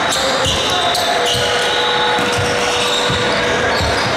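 Basketball bouncing on a hardwood gym floor during play, a series of thumps in a large, echoing gym.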